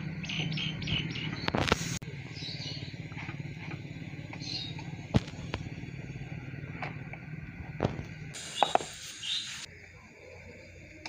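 Small birds chirping in short high calls over a steady low hum, with a few sharp clicks, one loud one about five seconds in.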